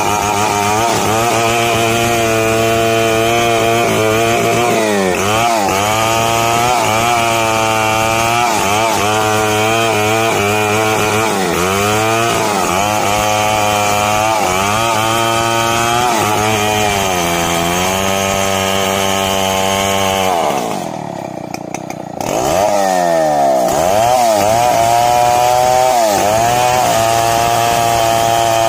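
Large two-stroke chainsaw cutting into the trunk of a big mahogany tree, its engine note dipping and recovering again and again as the chain bites into the wood. About twenty seconds in it drops briefly toward idle, then revs back up and goes on cutting.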